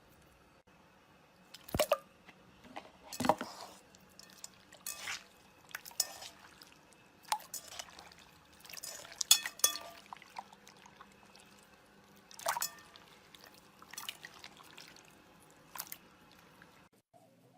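Slime being worked by hand, giving irregular wet pops and clicks, about a dozen, a second or two apart with quiet between.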